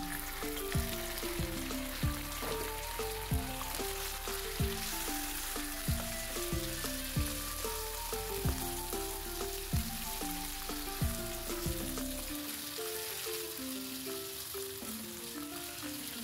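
Marinated beef chunks sizzling as they land in hot oil with sliced onions in a frying pan, then being stirred with a spatula. Under it runs instrumental background music with a steady kick-drum beat.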